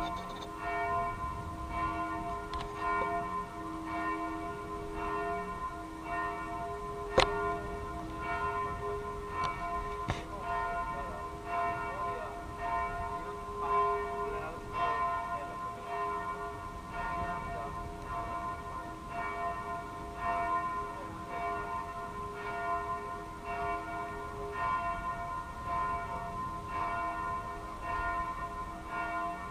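The tower bells of the Cathedral of Sts Peter and Paul in Osijek are ringing a steady peal, with strokes about once a second and several tones sustaining between them. A sharp click cuts through about seven seconds in.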